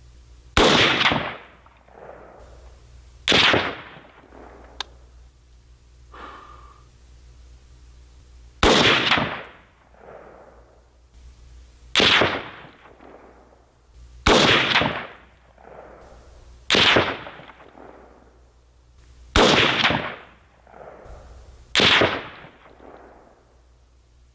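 300 AAC Blackout AR-style rifle with a Corvette Comp muzzle brake firing eight single shots, spaced about two to five seconds apart, each shot followed by a rolling echo.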